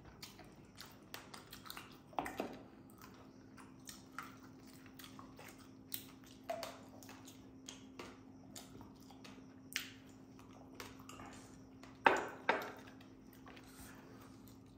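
Quiet eating sounds: chewing and small clicks of chopsticks on a wire grill rack, with two sharper knocks in quick succession about twelve seconds in. A faint steady hum runs underneath.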